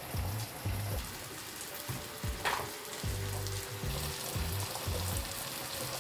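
Wooden spoon and chopsticks stirring a thick chili sauce in a ceramic bowl, with a sharp tap about two and a half seconds in, over a steady hiss and background music with a bass line.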